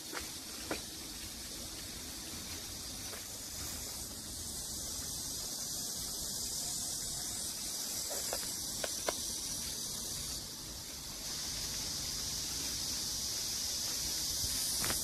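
A chorus of cicadas singing steadily, a high, even hiss that dips briefly about ten seconds in. A few faint clicks come near the start and again around eight to nine seconds in.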